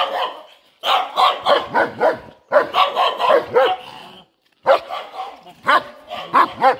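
A dog barking over and over in quick runs of barks, with a short break about four seconds in.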